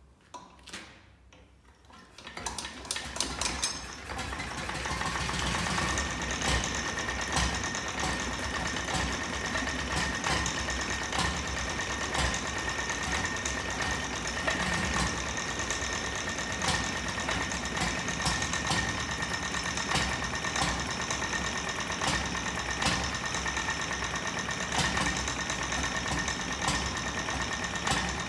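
1923 Petter M 'Little Pet' 1.5 hp stationary engine being hand-cranked: a few clicks, then it catches about two seconds in, picks up over the next couple of seconds and settles into a steady running clatter with a louder beat about every two seconds.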